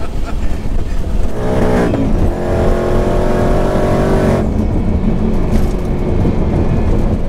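Tuned Ford Mustang GT 5.0 V8 under hard acceleration, heard from inside the cabin: the engine note rises for about a second, then holds high and loud. About four and a half seconds in it cuts off suddenly to a quieter, steady engine drone.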